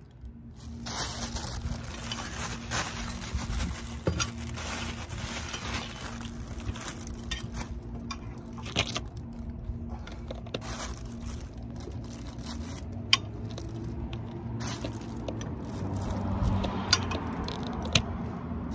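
Thin plastic carry bag crinkling and rustling as a four-way cross lug wrench turns lug nuts through it, the bag beginning to tear, with a few sharp clicks of the wrench on the nuts.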